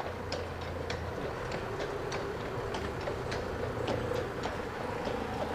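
Hooves of a Postier Breton draught horse clip-clopping at a walk on a paved road, about two to three hoofbeats a second, with a steady rolling noise from the horse-drawn wagon underneath.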